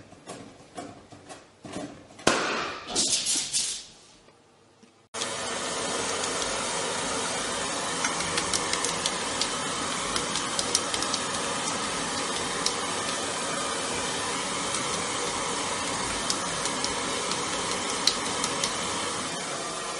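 Electric hair dryer blowing steadily, a constant rushing noise with a few faint clicks, starting abruptly about five seconds in. Before it come light taps and one loud sudden noise about two seconds in as a cat bats a balloon.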